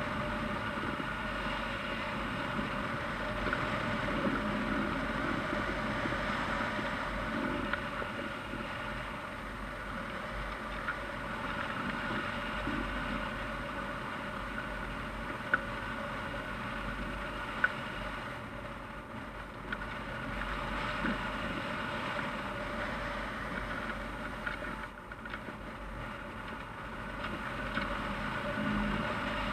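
Steady rush of air over a hang glider's wing-mounted camera in flight: wind noise on the microphone. Two short sharp clicks come about halfway through.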